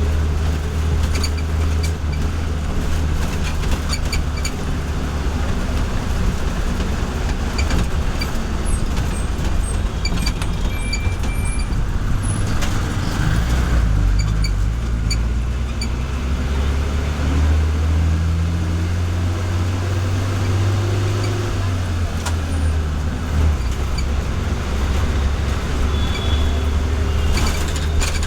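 City bus engine running, a steady low drone with scattered clicks and rattles; the engine note changes about halfway through as the bus changes speed.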